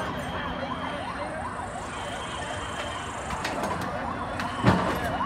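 Emergency vehicle siren sounding a fast rising-and-falling yelp, fading after two or three seconds. A sharp knock near the end is the loudest sound.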